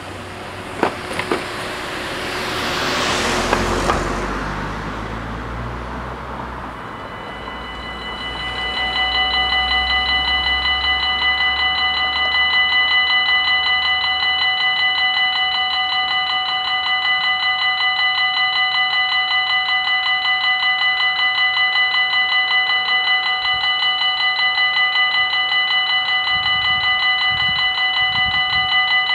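A car drives over the level crossing in the first few seconds. About eight seconds in, the level crossing's two electronic warning bells start and ring on steadily, warning of an approaching train.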